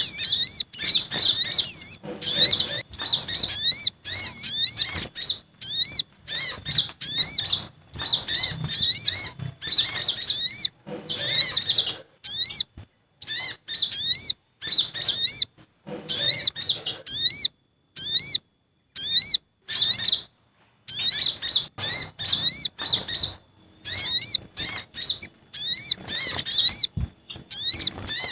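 Bird-lure recording of small birds' calls, sogon and kolibri ninja (a sunbird) together: rapid, high-pitched, excited chirping in quick arching notes. It comes in bursts of about a second, broken by short abrupt gaps.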